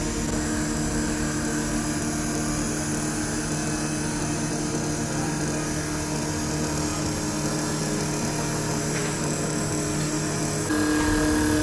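Automatic CNC wood lathe running with a steady machine hum. Near the end it steps up louder, with a new steady tone.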